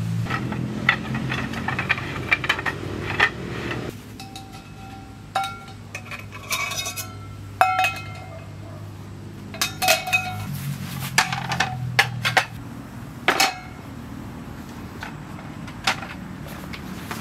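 Camp furniture and metal gear being handled and set up: a string of sharp metallic clinks and knocks, several ringing briefly. Underneath is a low hum that drops away about four seconds in and comes back for a few seconds past the middle.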